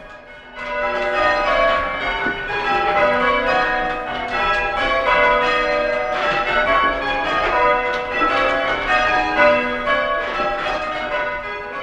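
Church tower bells being rung full-circle by a band of ringers in English change ringing: a steady succession of overlapping bell strikes. It starts about half a second in.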